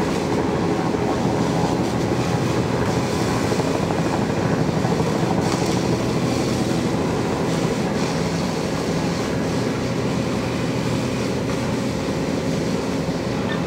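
An engine running steadily, a loud even drone with fixed low tones that does not rise or fall.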